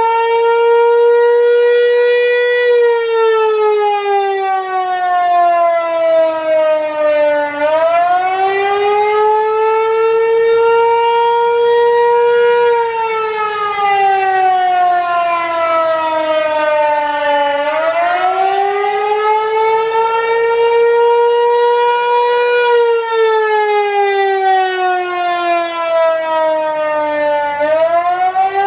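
Federal Signal Equinox outdoor warning siren sounding its attack signal: the pitch jumps up sharply, holds for a few seconds, then slides slowly down, repeating about every ten seconds.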